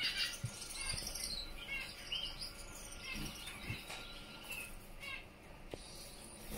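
Gouldian finches chirping: runs of short, high chirps in quick series, with a few thin whistled notes.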